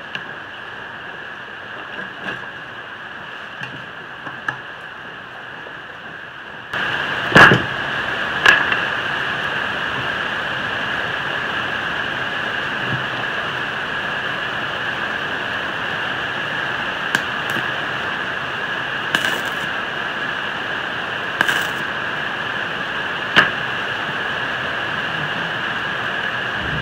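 A steady hiss that starts abruptly about seven seconds in, with a few sharp clicks and short crackles over it.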